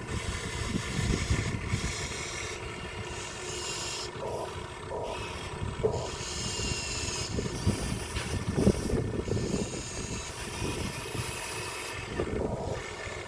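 Remote-control truck working, with irregular scraping and rubbing.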